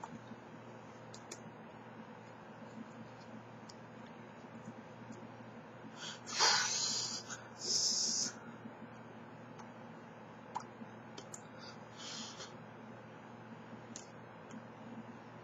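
Puffs of breath blown out hard, hissing, two close together about six to eight seconds in and a shorter one around twelve seconds, over a steady low electrical hum. A few faint taps of hands touching while signing.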